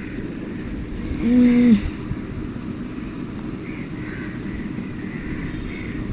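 Steady low background rumble, with a short pitched hum lasting about half a second, a little over a second in.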